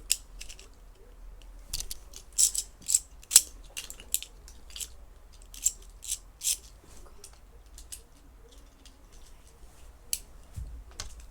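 Beyblade spinning tops battling: sharp, irregular clicks and clacks as the tops knock into each other, with the densest clusters about two to three seconds in and again around six seconds.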